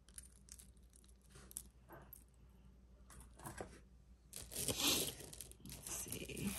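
Jewelry and its packing being handled: a few light clicks and taps, then louder rustling from about four seconds in.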